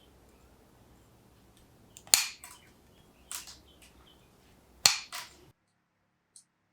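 Three sharp snaps about a second apart, each followed closely by a weaker click.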